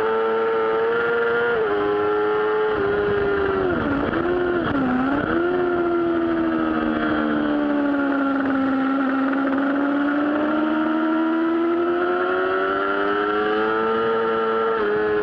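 Yamaha R6 600 cc inline-four sportbike engine heard from onboard at track speed, with wind rush. The revs step down twice in the first three seconds, dip sharply twice around four to five seconds in, then sag low and climb steadily for several seconds before a gear change near the end.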